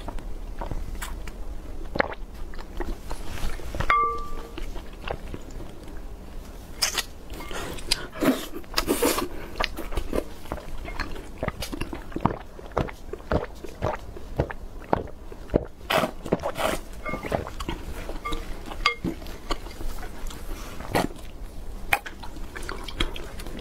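Close-miked slurping of milk tea through a wide straw, along with chewing of tapioca pearls and glutinous rice balls. Many sharp, wet mouth clicks and a few longer slurps.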